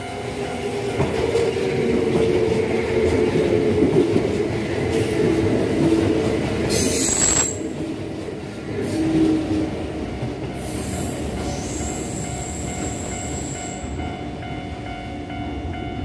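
Kintetsu limited express electric train passing close by on a curve, with loud wheel-and-rail running noise through the first half. The wheels squeal high and sharp about seven seconds in and again from about ten to fourteen seconds.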